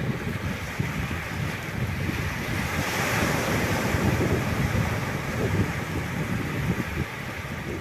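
Ocean surf breaking and washing ashore, swelling to a peak about three seconds in and then easing off, with wind buffeting the microphone.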